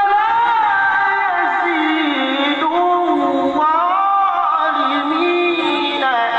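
A man reciting the Quran in the melodic tilawah style, high and sustained, drawing out long held notes with ornamented turns and glides.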